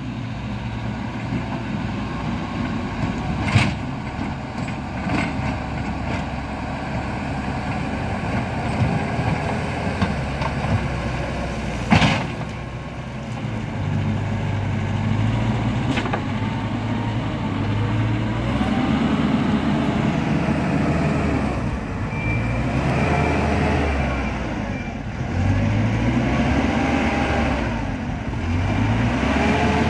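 Diesel engines of heavy road-building machinery working under load, with several sharp metallic knocks. In the second half the engine note rises and falls repeatedly, and a faint high-pitched beeping joins it.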